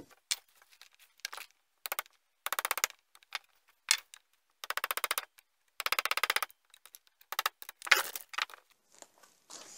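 Hammer striking a pin punch to drive out the brake master cylinder reservoir's retaining pins: a few single sharp metallic knocks and three bursts of rapid, rattling taps about half a second to a second long.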